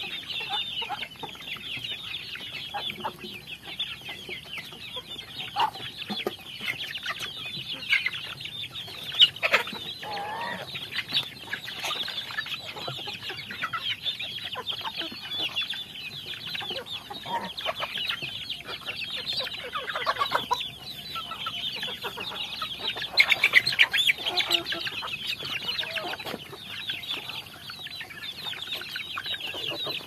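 A flock of young chickens feeding, clucking and peeping without pause over the clicks of beaks pecking feed off concrete. A few louder calls stand out about nine seconds and about twenty-three seconds in.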